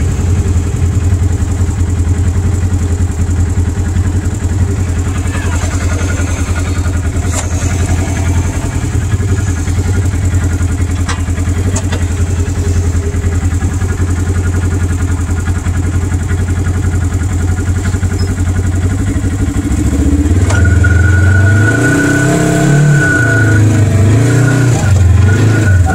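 Polaris RZR side-by-side's engine running at a steady idle; about twenty seconds in, its note rises and falls as it is revved, with a high whine over it for a few seconds.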